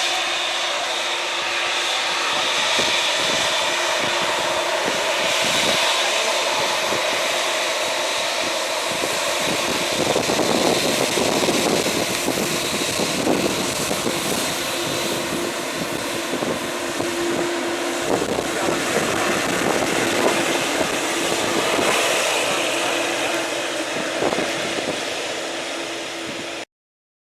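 Jet engines of a Boeing airliner running, a steady rush of noise with a constant whine and a low hum, which cuts off suddenly near the end.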